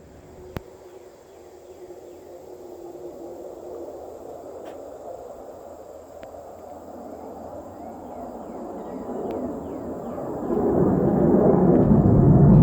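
Low rumble of a jet aircraft overhead, building steadily and swelling sharply louder about ten seconds in. It sounds like a military plane to the listener on the ground.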